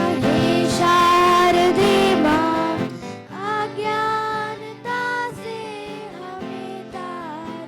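Live music from student musicians: a melody over sustained chords, louder for the first three seconds and then softer.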